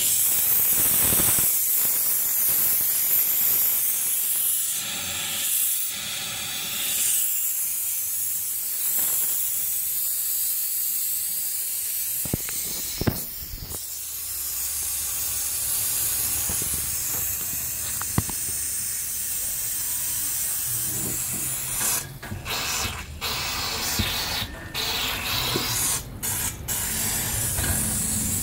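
Compressed air and condensate hissing out of a dental air compressor's tank drain as the tank is purged, a steady loud spray. Near the end the hiss cuts off and comes back several times.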